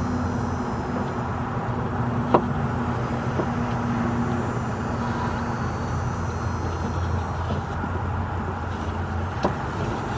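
Steady low mechanical hum, with a couple of light clicks about two seconds in and near the end.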